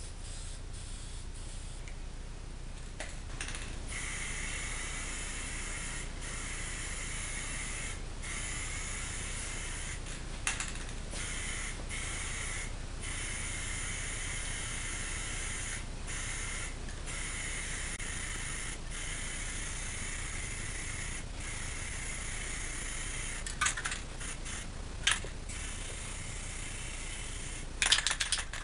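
Aerosol spray-paint can (Rust-Oleum royal blue) with a clip-on trigger handle, hissing steadily as paint is sprayed, broken by brief pauses between passes. A few sharp knocks stand out near the end.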